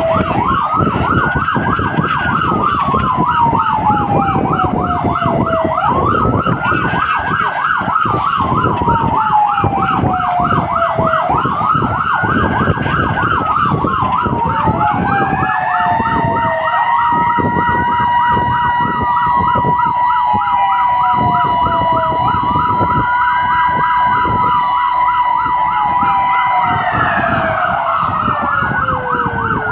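Emergency sirens heard from inside a responding fire engine's cab. A fast yelp runs throughout under a slow wail that rises and falls about every five and a half seconds. About halfway in, a steady high tone joins, holds for about eleven seconds, and drops away a few seconds before the end.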